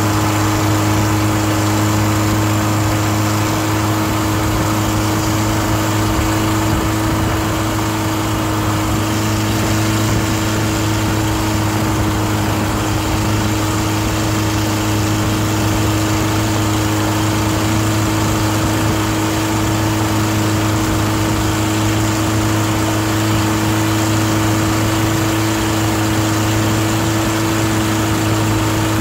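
The long-tail boat's stern-mounted inboard engine runs at a steady, even speed while the boat is under way. It is a loud, unchanging drone heard from right beside the engine.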